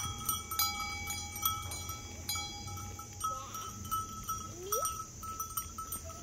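Sheep grazing close by: a quick run of crisp clicks as grass is torn and chewed, with a short rising call about four and a half seconds in.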